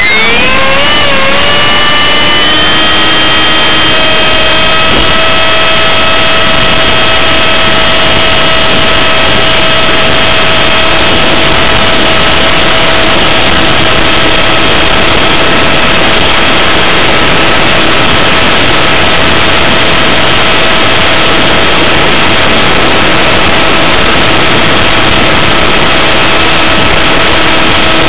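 Electric motor and pusher propeller of a ParkZone Stryker F-27Q RC flying wing, heard close up from a camera mounted on the airframe. The whine rises in pitch over the first couple of seconds, then holds steady over a constant rush of air noise.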